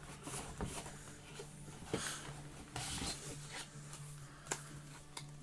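Watch-box packaging and paper documents being handled: light rustling and scattered small taps and knocks, over a steady low hum.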